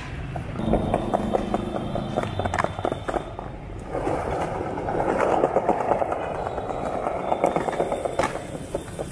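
Skateboard wheels rolling over paved ground with a gritty, clicking rattle that grows louder about halfway through. There are two sharp clacks of the board on the ground, one a couple of seconds in and one near the end.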